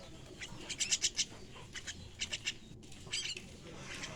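Young starling chicks squawking in short, rapid clusters of harsh, high calls, three bursts in a few seconds, typical of nestlings begging for food.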